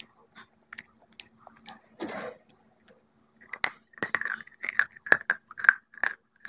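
Crisp crunching bites and chewing of a hard, chalky white block. The crunches are sparse at first and come several a second from about halfway through.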